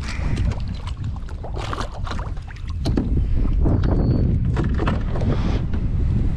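Wind rumbling on the microphone on a kayak, with irregular splashes and knocks on top.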